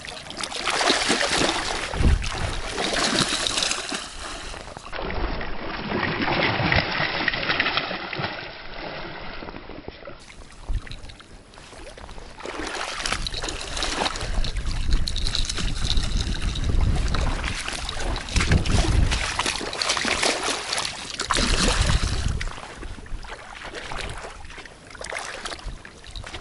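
A hooked pike thrashing and splashing at the surface of shallow water in repeated surges, with water washing over the stones.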